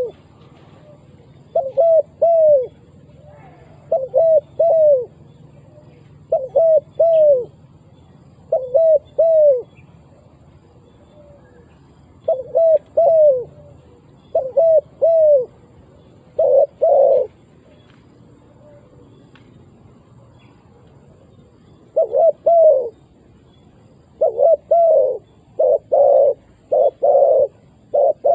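Spotted dove cooing: short phrases of two or three rising-and-falling coos about every two seconds, then near the end a faster, denser run of coos.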